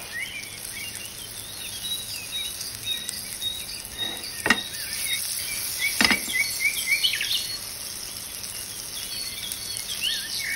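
A background track of birds chirping over and over. Under it, a steady hiss of chicken breast frying in butter, with two sharp pops, one about four and a half seconds in and one about six seconds in.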